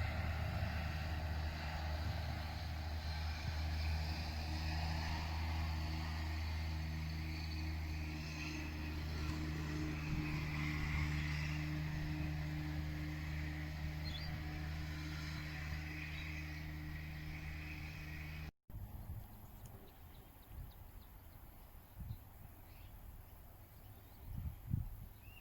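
A steady low engine drone runs unchanged for about eighteen seconds, then cuts off abruptly. Quiet outdoor ambience follows, with a few soft low bumps.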